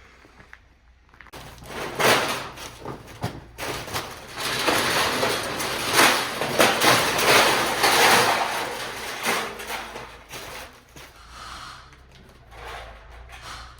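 Scrap sheet-metal roofing and aluminum scraping and rattling as it is dragged and loaded, with a few knocks, loudest through the middle.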